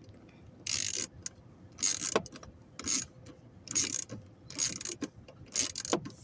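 A 9/32 socket ratchet on an extension clicking in about six strokes, roughly one a second, as a small bolt is turned.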